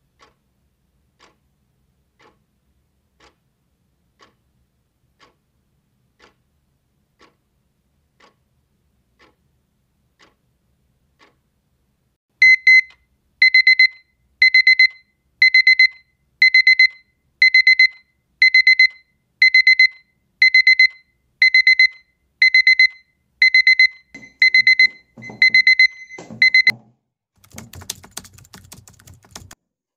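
Small battery analog alarm clock ticking faintly once a second, then its electronic alarm goes off: bursts of rapid, high beeps about once a second, the wake-up alarm. The beeping cuts off suddenly near the end and is followed by rustling and handling noises.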